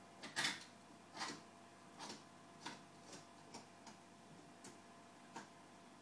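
A series of light, sharp clicks at irregular intervals, loudest in the first second and growing fainter and sparser after that.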